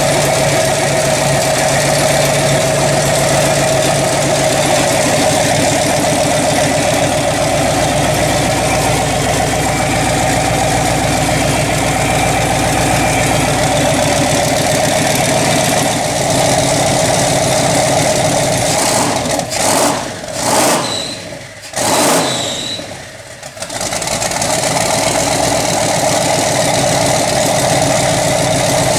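Twin-turbo 5.2 L Magnum V8 with a big cam running on its first startup, with a choppy, loping idle. About two-thirds of the way through, the engine note falls off and comes back a few times, then settles back to a steady run.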